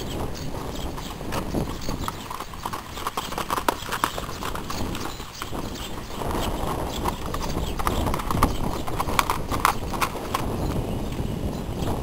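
Hoofbeats of two loose horses trotting on a dirt arena: a quick, irregular stream of sharp thuds.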